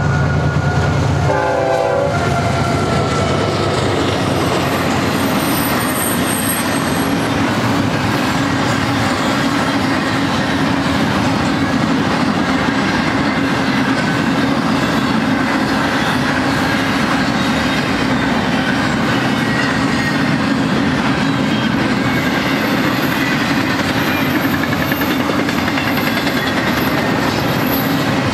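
BNSF double-stack intermodal train passing close by. The diesel locomotives rumble past in the first second or two. Then the loaded well cars roll by steadily, wheels clicking over the rail joints, with a faint high wheel squeal now and then.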